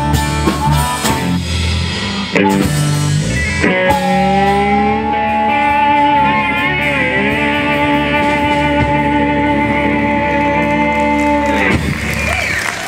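Live blues-rock band of electric and acoustic guitars with harmonica and drums, closing the song on a long held chord that stops a second before the end.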